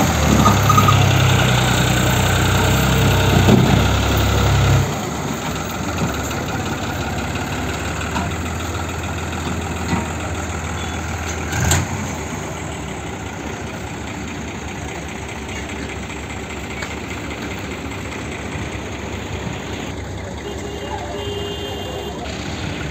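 New Holland 5500 tractor's three-cylinder diesel engine running under heavy load as it pulls two trailers loaded with sugar cane, the front wheels lifting. Loud bass-heavy music covers the first five seconds and cuts off abruptly, and a single knock sounds about twelve seconds in.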